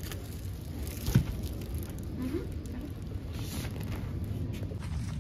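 Roll of artificial grass carpet being unrolled and handled on a stone floor, with light scattered clicks and a single sharp thump about a second in.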